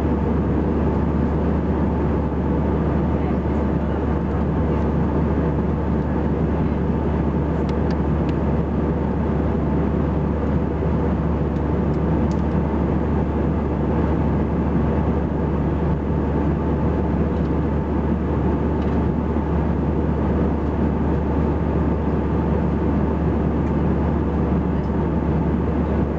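Steady cabin noise of an Airbus A319 in flight, heard from a window seat beside the wing: its CFM56 turbofan engines and the airflow past the fuselage make an even, deep sound with a constant low hum underneath.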